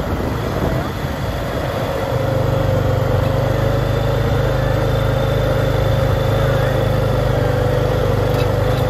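ATV engine running steadily as it rides along a gravel track, its low drone getting stronger about two seconds in.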